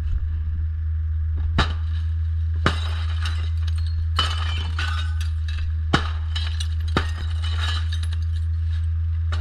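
Glass being smashed, with about five separate sharp breaks and shards clinking, spaced roughly a second apart, over a steady low hum.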